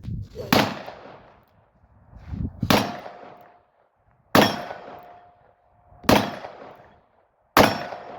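Smith & Wesson 686 revolver fired five times in slow, deliberate single shots about one and a half to two seconds apart. After most shots a steady ringing tone follows, the sound of a steel target being hit.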